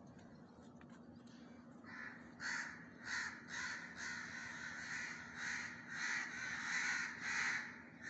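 Crows cawing over and over, a run of about a dozen caws at roughly two a second, starting about two seconds in.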